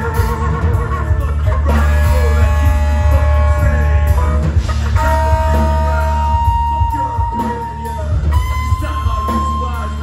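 Live punk-metal band playing loudly: electric guitars over bass and drum kit, with long held notes and vocals at the microphone.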